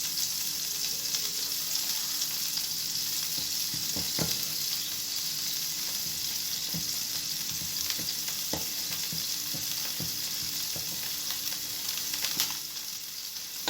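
Butter and olive oil with garlic, lemon and chili sizzling steadily in a frying pan, with a few light knocks of the utensil against the pan as it is stirred.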